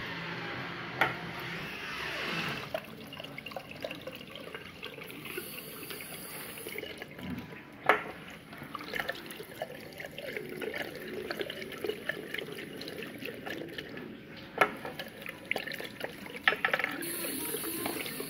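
Tap water running into a ceramic wash basin and down the drain as hands are washed under it, with a few sharp knocks standing out over the flow.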